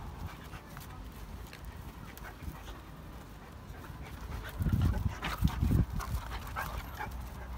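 Two dogs, a Dogo Argentino and a beagle, at play, with a louder low rumble lasting about a second just past the middle.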